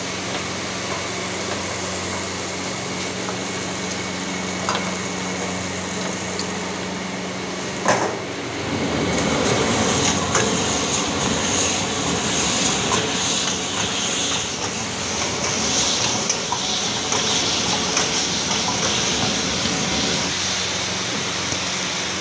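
A steady hum from the range with a few light clinks, then a sharp clang about eight seconds in. After that, loud sizzling and the scrape and clatter of a ladle as fried chicken pieces are stir-fried in a wok over a high gas flame.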